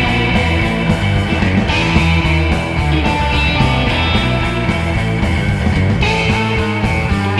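Live instrumental surf rock from a band: electric guitar, electric bass and a drum kit playing together.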